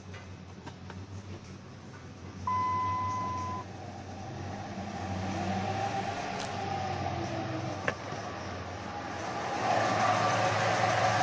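2003 Dodge Ram 1500's 5.9 L V8 running as the truck pulls away, the engine note rising and falling with the revs. About two and a half seconds in, one steady electronic beep lasts about a second, and near the end a louder rushing noise comes in.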